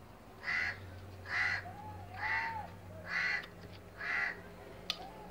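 A crow cawing five times, about one harsh caw a second, with a single sharp click near the end.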